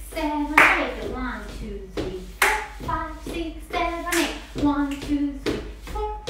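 Voices scatting the rhythms of a solo jazz dance routine in short sung syllables, with sharp clap-like accents about every two seconds.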